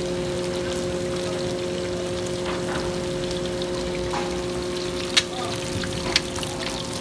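Fish pieces sizzling in shallow oil on a large flat tawa griddle, a steady crackling hiss over a low steady hum. Two sharp metallic clicks about a second apart near the end, from the cook's metal spatula against the tawa.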